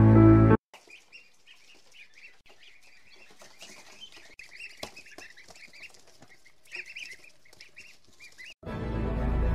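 A brood of ducklings peeping continually: many short, high cheeps overlapping, faint. Background music cuts off about half a second in and comes back near the end.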